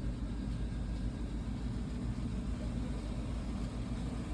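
Steady low rumble of a car in motion, heard from inside the cabin, with no distinct events.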